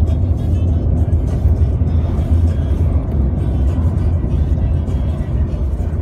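Bass-heavy music playing from the car's stereo, heard inside the cabin over the steady low rumble of the moving car.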